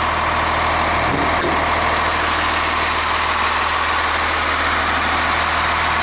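Cummins 8.3-litre inline-six diesel in a rear-engine school bus idling steadily. Two faint knocks about a second in.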